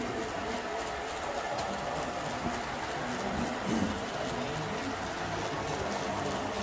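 Hall ambience: a steady running hum typical of a model train on its layout, under a low murmur of distant voices.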